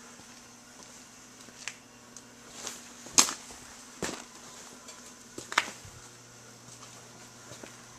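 Several short, sharp knocks at irregular intervals, the loudest about three seconds in, over a faint steady low hum.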